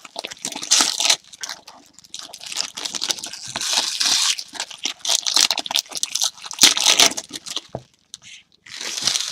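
Packaging of a trading card box being torn and crinkled by hand: irregular bouts of tearing and crackling wrapper with short pauses, a brief lull near the end.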